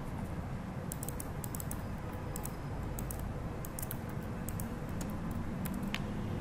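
Computer keyboard typing: scattered key clicks in a bunch from about one to three seconds in and again near the end, over a steady low hum.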